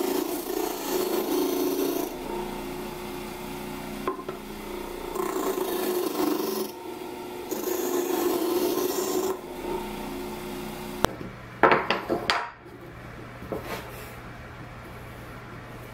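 Drill-powered homemade disc sander running with a steady motor tone while plywood is pressed against the sanding disc, the rasping of the sanding swelling and fading in bouts of one to two seconds. About eleven seconds in it cuts off abruptly, and a few sharp wooden knocks follow as small wooden blocks are handled.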